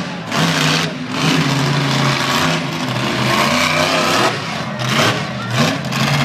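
Monster truck engine revving hard in repeated surges, its pitch rising and falling, with a few brief dips in power between pushes.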